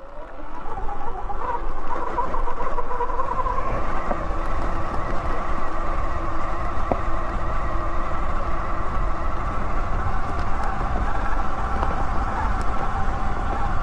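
Electric motorbike's motor whining as it pulls up a dirt trail, the whine rising in pitch over the first few seconds and then holding steady, over a low rumble.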